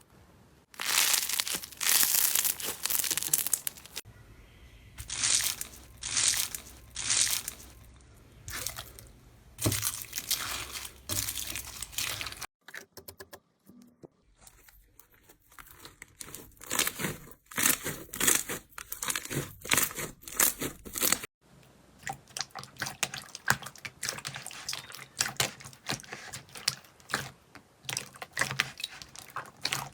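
Slime being squished and pressed by hands, making dense crackling, crunching clicks and pops across several short clips that change abruptly.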